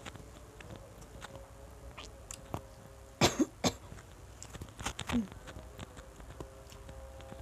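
Close-miked chewing and wet mouth clicks of a person eating rice and spiced fish by hand, broken by a few short coughs: two about three seconds in and another cluster near five seconds.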